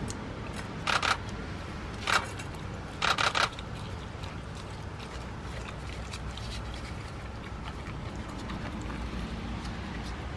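San'in Shiba dog chewing and tearing at a chunk of wild boar meat in a steel bowl: three short loud bursts in the first three and a half seconds, the last one the longest, over a steady low rumble.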